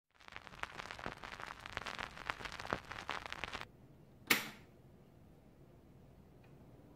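Vinyl record surface crackle, a dense run of small pops and clicks for about three and a half seconds that cuts off abruptly. About a second later comes one sharp click as a piano-key push button on a vintage Tatung LC-12 electric fan is pressed.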